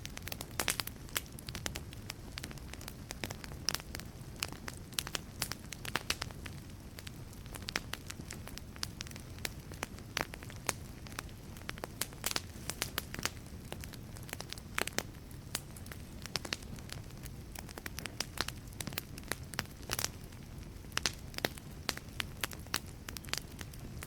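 Wood fire burning in a fireplace, the logs crackling and popping in irregular sharp snaps over a steady low rush of flame.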